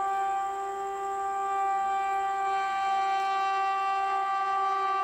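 Indian Railways WAP-4E electric locomotive's air horn blowing one long, steady note.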